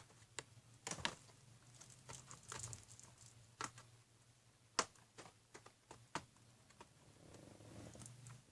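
Faint, scattered clicks, taps and short scratchy rustles of fingers picking and tearing at scotch tape on a cardboard toy box.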